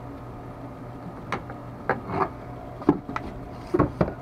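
PVC pipe and 3D-printed plastic pump parts being handled and fitted together: a string of irregular clicks and knocks, the loudest about three and four seconds in, over a steady low hum.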